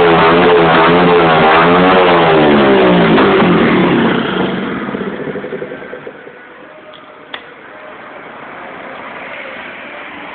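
Tuned 50cc motorcycle engine revving, its pitch rising and falling several times, then the sound falls away about four to six seconds in and stays much quieter.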